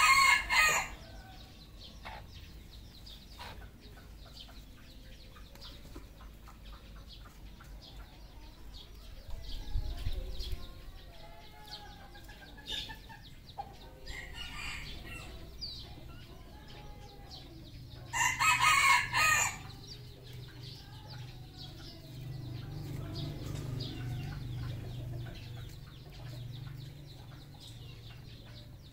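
Red junglefowl roosters crowing, three short crows of about a second each: one at the start, one about halfway through and another a few seconds later, with softer clucking between them.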